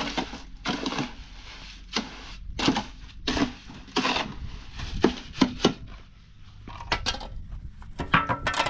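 Long-handled tool scraping and chopping through wet cement mortar in a metal wheelbarrow as it is mixed by hand: repeated gritty strokes, roughly one a second, with a short pause about six seconds in.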